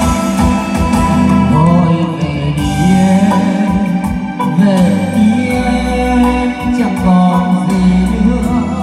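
Loud music played through a stage sound system's line-array speakers, with a melody over a heavy bass line.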